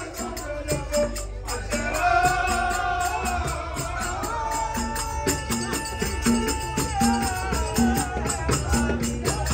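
Live folk-theatre music: a hand drum beats a steady rhythm under crisp ticking percussion, and from about two seconds in a long held melody carries above it.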